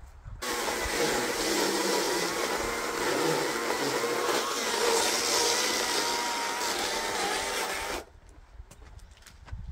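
A power saw running hard as it cuts through a firewood log, its motor pitch wavering under load; it starts abruptly about half a second in and cuts off about eight seconds in.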